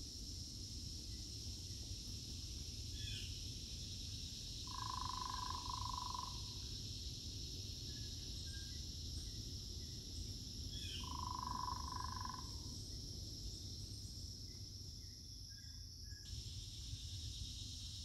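Steady, high-pitched insect chorus, with two long, even mid-pitched calls about six seconds apart, each preceded by a short higher note. The insect sound drops out briefly near the end, then cuts back in abruptly.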